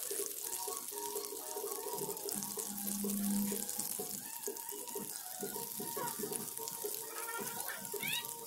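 Breaded shrimp deep-frying in hot oil: a steady sizzle and bubbling. A few short rising chirps can be heard near the end.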